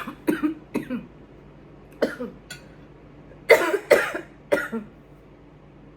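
A woman coughing in a string of short, harsh bursts, with the strongest pair about three and a half seconds in, as she chokes on a mouthful of food.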